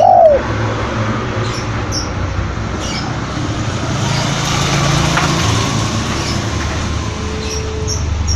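A spotted dove's coo note ends just at the start. Then comes a steady low rumble and hiss of road traffic, with a few faint, short high chirps from small birds.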